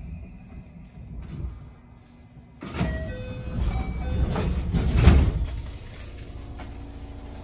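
JR West 207 series train's sliding passenger doors opening at a station stop: a sudden rush and rumble about two and a half seconds in, with several short tones at different pitches, loudest near the five-second mark. Before that, a low rumble and a faint high steady tone that cuts off about a second in.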